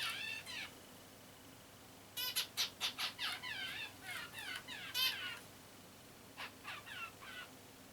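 Female zebra finch giving rapid series of short, nasal calls, each sliding down in pitch, in three bouts: briefly at the start, a long run from about two to five seconds in, and a shorter one near the end. This is her nesting call, the 'let's make a nest here' sound.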